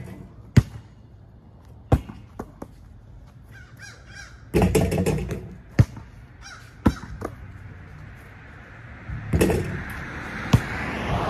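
Crows cawing in a series of harsh calls. Several sharp thuds from a basketball bouncing on a concrete driveway.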